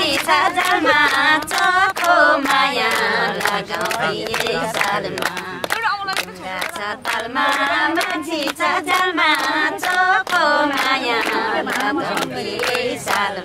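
Several women singing a Nepali lok dohori folk song together, with rhythmic hand-clapping keeping the beat.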